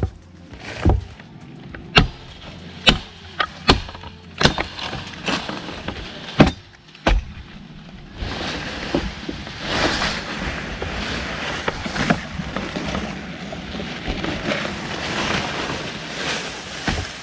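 Blade strikes chopping into a tree limb, about a dozen sharp irregular chops over the first eight seconds, then a long stretch of rustling, crackling leaves and branches.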